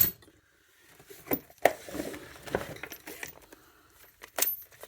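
Hand tools being handled and set down: a handful of sharp metallic clinks and clacks, with some rustling between them.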